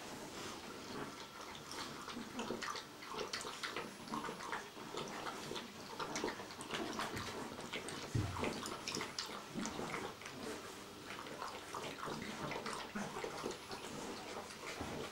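A five-week-old puppy lapping water from a stainless-steel bowl: a fast, uneven run of small wet clicks and splashes. A single dull bump comes about halfway through.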